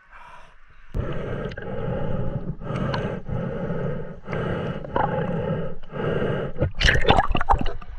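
A snorkeler's heavy, rasping breaths through a snorkel, in quick succession, about one a second, while hauling a long pipe to shore, then a splash of water about seven seconds in.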